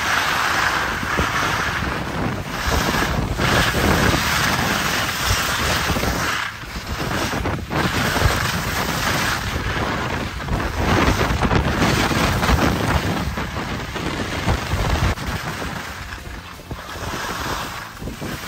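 Wind rushing over the microphone: a loud, rumbling hiss that swells and drops unevenly.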